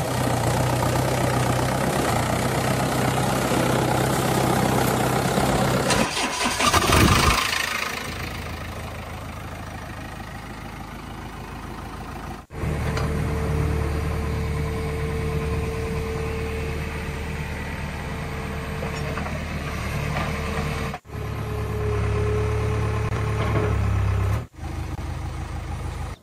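Tractor engine idling steadily, with a louder rough surge about seven seconds in. The sound breaks off abruptly three times and starts again.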